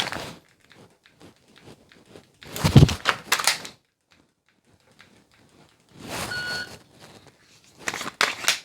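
Electronic shot-timer beep at about 6 seconds in, with short bursts of pistol-handling clatter and clicks from dry-fire practice: one about 2.5 seconds in and one near the end. The tail of an earlier beep ends right at the start.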